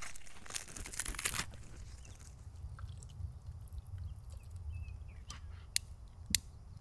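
Dry twigs being handled and broken for a fire: a dense crunching for the first second and a half, then quieter rustling, and two sharp snaps near the end.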